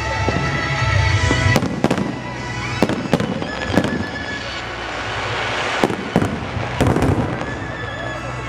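Festival fireworks shells bursting with sharp bangs, about a second apart, some followed by a crackling trail, over music with held notes.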